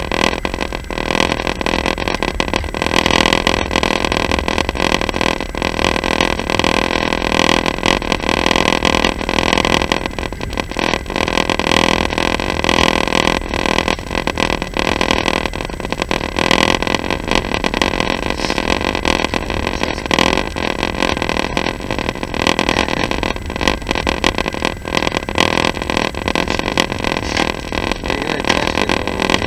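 Passenger train running along the line, heard from inside the carriage: a steady rumble of wheels on rails with frequent irregular knocks and clicks.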